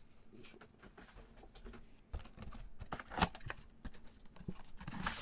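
Cardboard trading card box being handled and opened with gloved hands: light taps, scrapes and clicks of the card stock, with one sharper knock about three seconds in.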